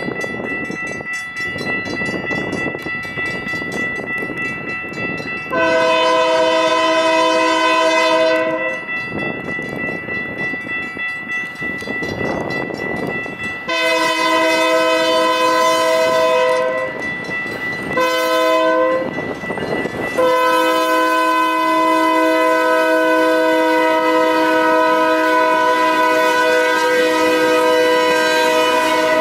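Diesel freight locomotive horn sounding the grade-crossing signal: two long blasts, one short, then a long one held to the end, a chord of several tones. Under it the crossing bell rings steadily, with the rumble of the approaching train between blasts.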